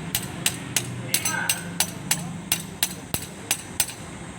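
A hammer striking metal in a quick, steady rhythm of sharp blows, about three a second, that stops shortly before the end.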